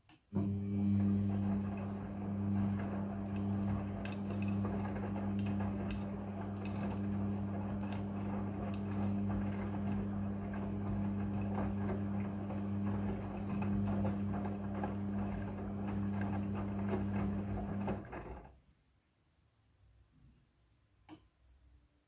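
Midea front-loading washing machine turning its drum in the wash cycle: a steady motor hum with the wet clothes tumbling and many light clicks. The run starts just after the beginning and cuts off about 18 seconds in, the drum pausing before it turns the other way, followed by one faint click.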